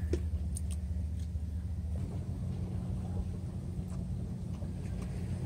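Steady low engine rumble that shifts in tone about two seconds in, with a few faint clicks over it in the first second or so.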